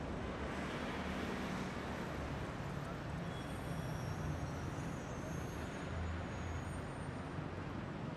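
City street traffic: a steady rumble of passing cars and buses, with a few faint high squeals in the middle.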